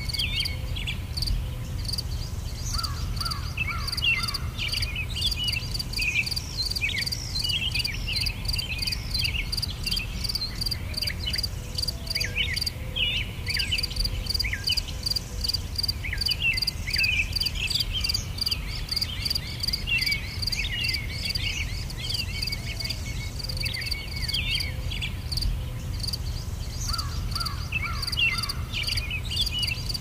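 Nature ambience of crickets chirping in a steady, regular pulse, with birds chirping in short scattered notes over a low steady rumble.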